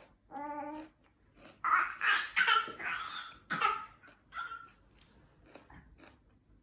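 A person making vocal noises: a short hummed or sung note, then a run of loud, breathy, cough-like bursts that tail off into a few faint clicks.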